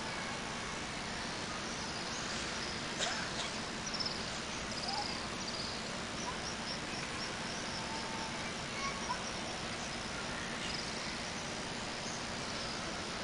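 Steady hiss of the open-air mosque ambience while the congregation prays in silence, with scattered short high chirps and a single sharp click about three seconds in.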